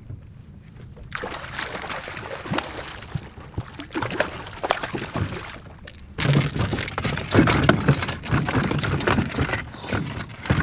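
Water splashing and sloshing as a hooked bluefish thrashes at the surface beside the boat and is hauled out, with many sharp knocks; louder from about six seconds in.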